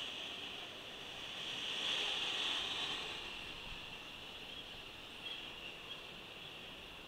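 Steady hissing road and traffic noise from riding a bicycle through city traffic, swelling about two seconds in and then slowly fading, with a couple of faint ticks near the end.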